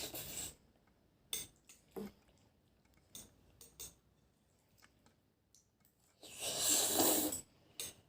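Close-miked mukbang eating and handling sounds: scattered small clicks and taps, then a louder burst of noise lasting about a second, near the end.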